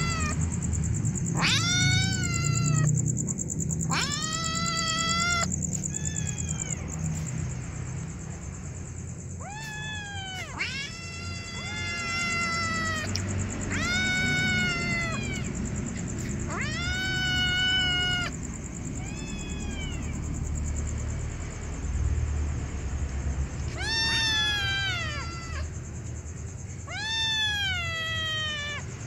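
Hungry kittens meowing: about ten long, drawn-out meows, each rising then sliding down, coming every couple of seconds with a few longer pauses. A steady high-pitched whine runs underneath.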